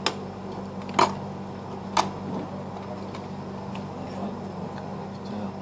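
Three sharp clicks about a second apart, the middle one loudest, as a smartphone's circuit board and small parts are handled and set down on a hard tabletop, over a steady low hum.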